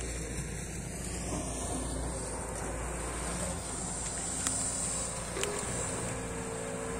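SANY SY215C excavator's diesel engine running steadily under load as the machine digs a ditch, with a low drone and a couple of sharp clicks about four and a half and five and a half seconds in.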